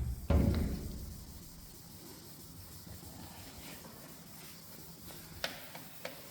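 A low thump at the start, then faint, scratchy hand wet-sanding of a plastic headlight lens with 1200-grit wet-and-dry paper, with a couple of small clicks near the end.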